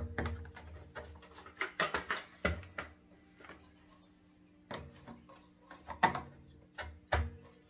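Scattered plastic clicks and knocks from Shop-vac attachments being handled and fitted into their storage spots, the loudest knock about six seconds in.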